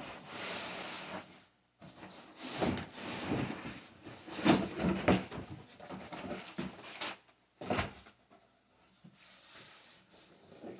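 Cardboard rubbing and scraping in irregular bursts as a boxed guitar is worked out of its shipping carton, with a short sharp knock or scrape nearly eight seconds in.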